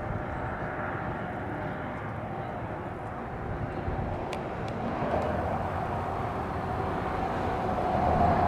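A steady outdoor rumble of engine noise, with a humming tone that grows louder over the last few seconds as the source draws nearer.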